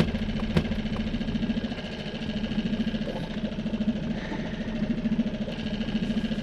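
Boat's outboard motor idling steadily with a fast, even pulse. There is a single sharp knock about half a second in.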